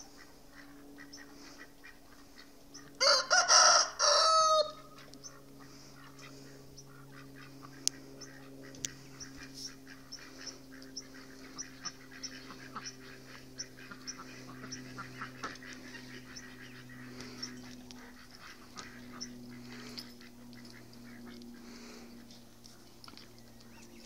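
A loud farm animal call about three seconds in, lasting under two seconds in three parts, the last drawn out and falling in pitch. The rest is a faint steady hum with scattered light clicks.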